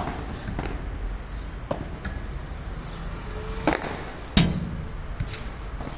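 Padel rally: a padel ball struck back and forth by rackets and bouncing on the court, heard as about half a dozen sharp pops, the loudest about four and a half seconds in.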